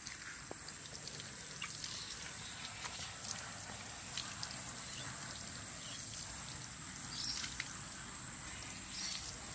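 Water dripping and trickling off a soaking-wet dog's coat onto a concrete path, with scattered small drips and splashes over a steady high-pitched hiss.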